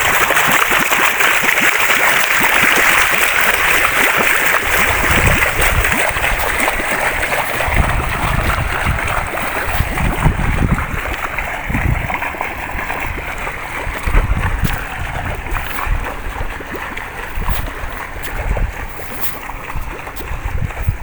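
Waterfall's rushing water, a steady hiss that softens gradually over the stretch, with low rumbles coming and going from about five seconds in.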